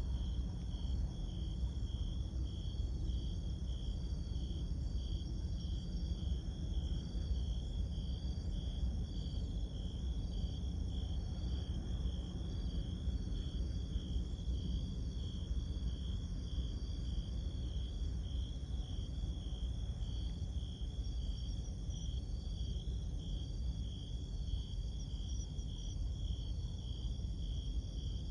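Crickets singing in steady, rhythmic pulses, with a second, higher insect song over them, above a steady low rumble.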